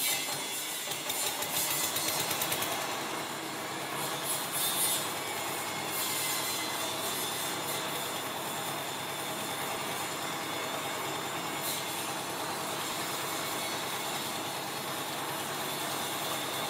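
Stationary single-cylinder diesel engine of a new concrete mixer running steadily, just after being started.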